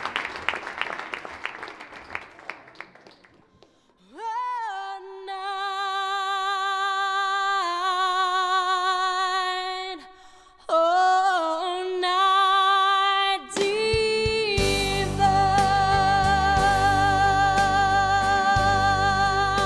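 Applause dying away, then a solo voice singing slow, long-held notes with vibrato, unaccompanied at first. About two-thirds of the way through, instrumental accompaniment joins in under the singing.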